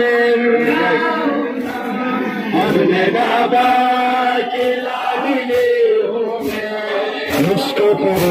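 Large crowd of men chanting a Muharram mourning lament (nauha) together in long held notes, with scattered sharp slaps of hands beating chests in matam.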